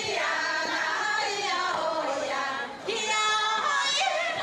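A group of voices singing a dance song together, with women's voices to the fore and a brief break in the singing just before three seconds in.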